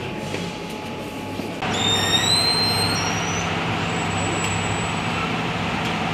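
Steady vehicle running noise that jumps louder about one and a half seconds in, with a few short, high squealing tones just after.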